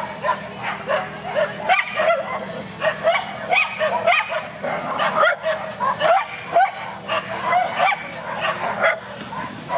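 A small dog yapping over and over in high, short yips, two or three a second without a break.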